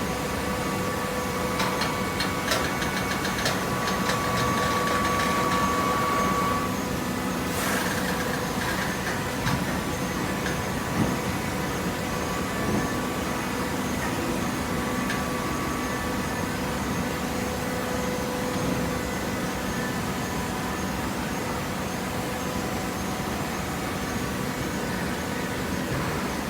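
Automatic horizontal hydraulic cardboard baler running: a steady machine hum with a steady whine. For the first ten seconds or so it carries scattered clicks and knocks, and a louder whine between about two and six seconds in.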